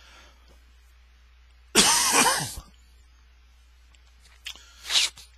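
A man coughs once, loudly and briefly, about two seconds in, followed by two short, softer sounds near the end.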